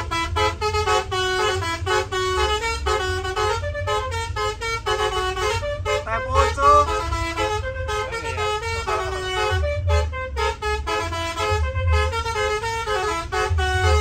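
A bus's Basuri telolet horn playing a tune of stepped, held notes, over a pulsing low beat.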